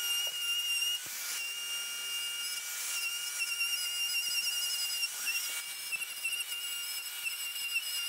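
Handheld plunge router running at full speed with a steady high whine, cutting a groove in a plywood panel as it is pushed along a guide rail, its dust extraction hissing. The cut turns briefly rougher a couple of times, typical of where the router crosses a slight offset at the joint between two guide rails.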